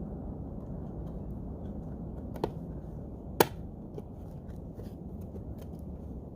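Sharp clicks and light ticks from handling the plastic parts of a car side mirror, the loudest click about three and a half seconds in, over a steady low rumble.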